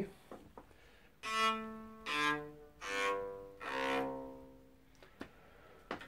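NS Design electric cello with a Gruv Gear FretWrap string damper fitted at the nut: four open strings sounded one after another, each note dying away, stepping down from the highest string to the lowest.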